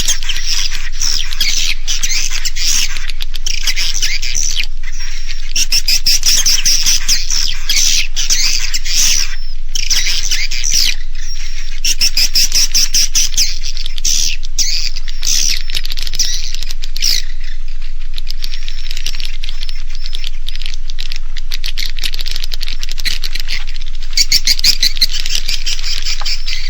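Recorded swiftlet twittering, a dense, continuous stream of high chirps played loud as a roosting ("inap") lure call meant to draw swiftlets and their young to stay overnight in a swiftlet house. It thins out for a few seconds in the latter part before growing dense again near the end.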